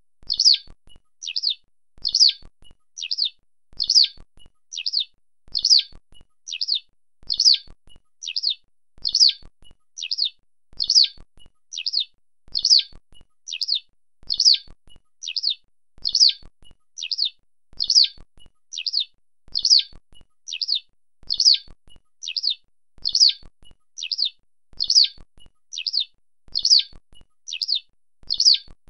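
Eurasian skylark (Alauda arvensis) giving its flight call: short chirruping notes that fall in pitch, repeated evenly a little more than once a second.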